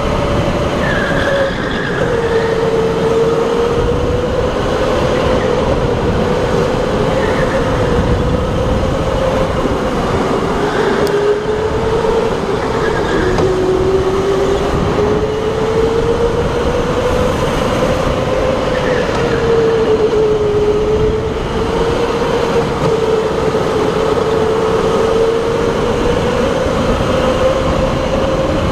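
Electric go-kart motor whining at speed. Its pitch dips and rises again several times as the kart slows for corners and accelerates out of them, over rumbling tyre and chassis noise.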